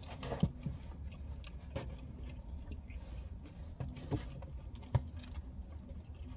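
Person eating thin-crust pizza: a few soft clicks and taps of handling and chewing over a steady low hum.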